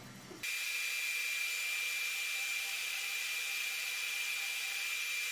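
Fan of a FLYING BEAR LaserMan laser engraver setup running: a steady airy whoosh with a constant high whine, starting abruptly about half a second in.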